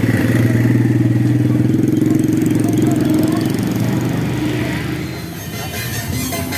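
Motor vehicle engine running close by, loudest for the first few seconds and fading away after about five seconds.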